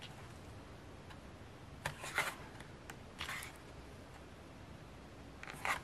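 Pages of a glossy photobook turned by hand: three short paper swishes, about two seconds in, a second later and near the end.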